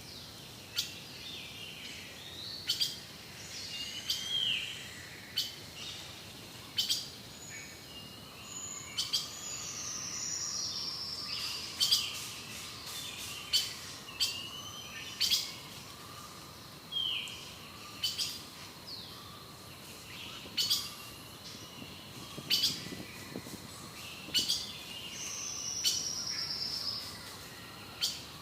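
Forest birdsong: several birds calling, with sharp loud clicks or chip notes about once a second and high falling whistled phrases, over a faint steady high-pitched hum.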